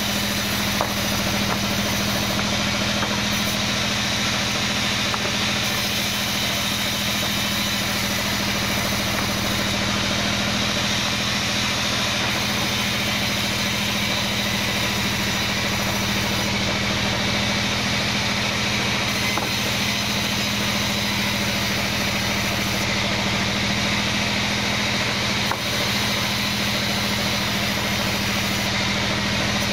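Band sawmill running steadily while its blade rips lengthwise through a kenanga log: a constant low machine drone under the even noise of the blade cutting through the wood.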